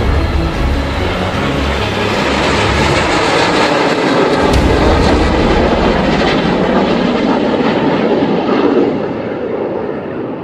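Jet engines of an aerobatic formation passing low overhead: a loud, steady roar that swells through the middle and eases off near the end.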